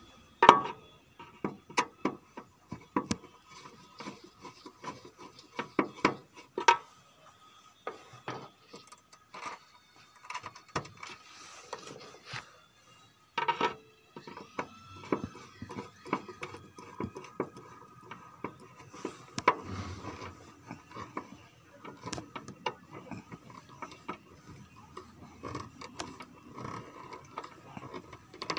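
Screwdriver turning and tightening the screws of a panel terminal block, with irregular clicks and scrapes of the tip in the screw heads as wire ends are fastened.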